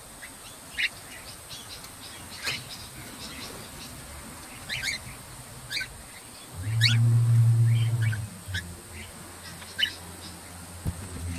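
Cockatiels giving short, sharp chirps, scattered about one a second. About six and a half seconds in, a low hum swells for about a second and a half and is the loudest sound.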